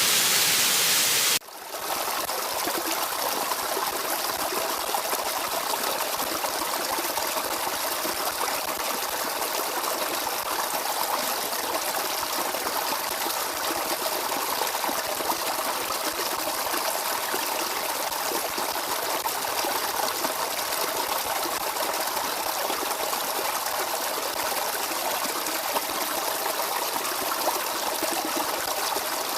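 Stream water running steadily with a fine babbling texture. About a second and a half in, a louder, hissier rush of falling water cuts off abruptly and the quieter flowing stream carries on.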